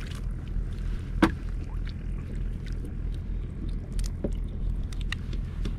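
A small boat on the water while a gill net is hauled in and fish are taken from it: a steady low rumble with scattered sharp clicks and knocks, the loudest about a second in.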